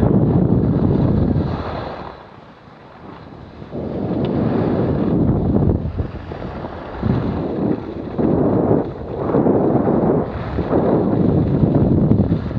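Wind buffeting an action camera's microphone while skiing downhill: a loud, low rushing noise that drops away about two seconds in and then swells back in several surges.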